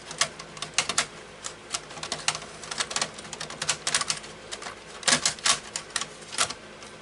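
Optical drive being pushed and worked into its drive bay in a Dell OptiPlex 3020 case: irregular plastic and metal clicks, knocks and scrapes, with a cluster of louder clicks about five seconds in, as the drive resists seating.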